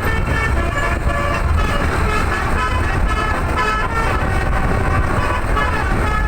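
A bus's 'telolet' musical air horn playing a quick tune of short stepped notes without pause, over the steady low rumble of engine and road.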